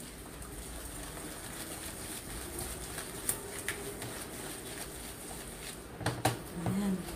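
Wire whisk stirring thick coconut macaroon batter in a plastic bowl: a soft, steady scraping with a few light ticks of the whisk against the bowl, more of them near the end.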